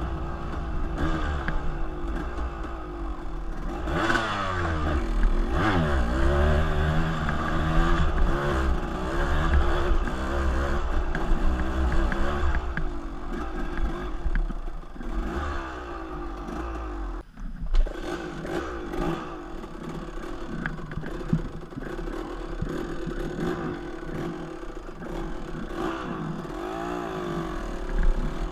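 Dirt bike engine running over a rough trail, its pitch rising and falling repeatedly with the throttle, under the rattle and scrape of the bike over rocks and roots. About two-thirds in the engine sound drops away for a moment, followed by a sharp knock.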